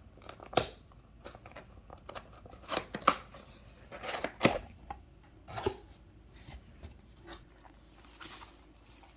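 A cardboard keyboard box being opened by hand: a string of sharp cardboard scrapes and knocks, the loudest about half a second, three seconds and four and a half seconds in, with softer rustling between.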